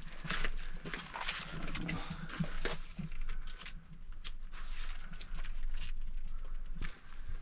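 Footsteps on gritty sandstone slickrock: an irregular run of crunching and scuffing steps.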